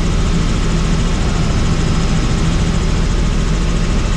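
Helicopter in flight, heard on board: a loud, steady drone of rotor and turbine with a low hum that does not change.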